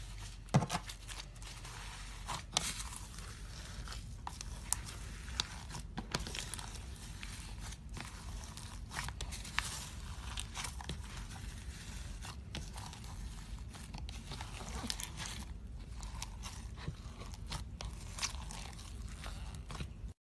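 Slime being squeezed and poked by hand, giving many irregular small crackles and pops over a steady low hum.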